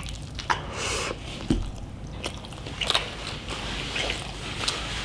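A person chewing a mouthful of food close to the microphone, with irregular wet mouth clicks and smacks.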